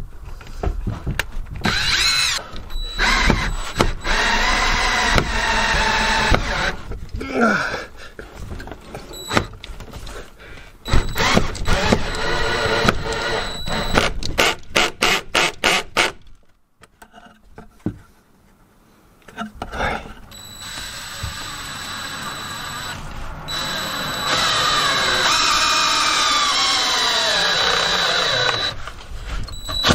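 Cordless drill driving a screw into wood overhead in repeated bursts of motor whine, the pitch rising and falling as the trigger is worked. After a short pause past the middle comes a long final run, the pitch sinking as the screw bites.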